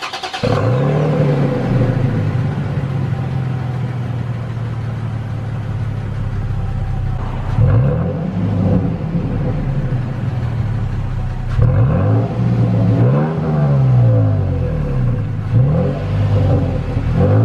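Stock exhaust of a 2020 Toyota Tacoma TRD Sport's 3.5-litre V6, heard at the black exhaust tip: the engine starts, settles into a steady idle, then is revved in several short blips, the pitch rising and falling each time, in the second half.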